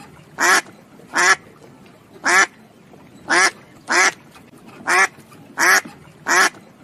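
A duck quacking: eight short, nasal quacks at uneven intervals, some close together in pairs.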